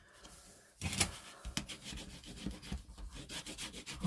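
Sheet of patterned scrapbook paper being rubbed and slid by hand across a craft mat, the fingers pressing a glued flap down. It is almost quiet for the first second, then comes a scratchy rustle with a couple of light taps.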